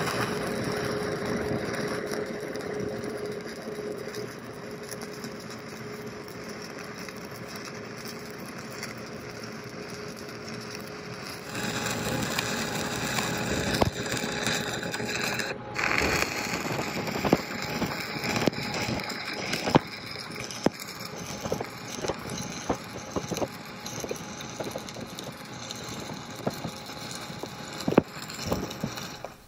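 Stick-welding arc from a 7018 electrode laying a cap bead on a steel bevel plate: a steady hissing crackle. It grows louder and spattier, with sharp pops, about a third of the way in, breaks for an instant around the middle, and stops abruptly as the arc is broken at the end of the bead.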